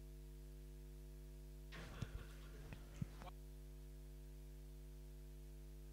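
Steady electrical mains hum on the hall's sound system, with a few faint clicks and knocks from handling at the lectern about two to three seconds in.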